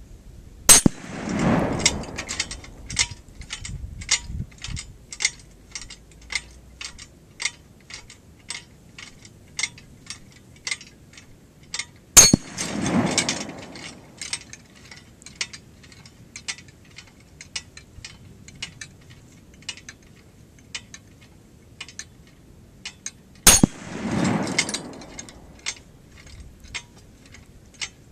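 Three .308 rifle shots about eleven seconds apart. Each is a sharp smack of a 168-grain bullet on a half-inch AR500 steel plate, followed by about a second of rolling report. Between shots the plate's hanging chains and snap hooks clink in quick ticks as it swings, fading before the next hit.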